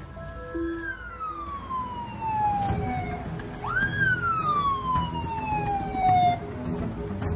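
Ambulance siren wailing in two slow falling sweeps, the second starting with a quick rise about three and a half seconds in.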